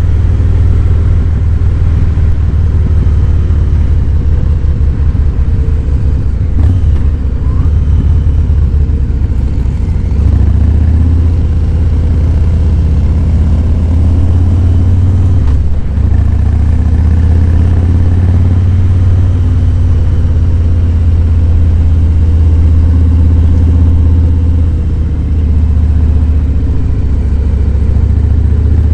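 Harley-Davidson Fat Boy 107's Milwaukee-Eight V-twin engine running on the road, a steady deep rumble with engine speed drifting up and down, and a brief dip about halfway through.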